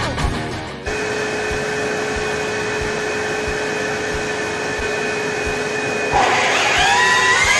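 Electric router running in a flattening sled over an end-grain cutting board, with a dust-extraction vacuum drawing through its hose: a steady motor whine. About six seconds in it gets louder, with a whine that rises in pitch and then levels off.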